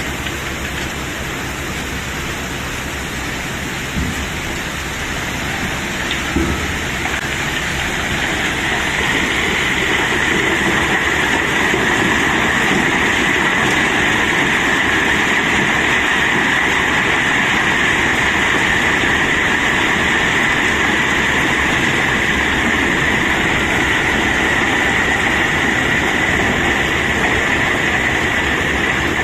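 A load of cobblestones being unloaded: a continuous rushing clatter of stones with a few separate knocks early on, growing louder about eight seconds in and holding steady from then on.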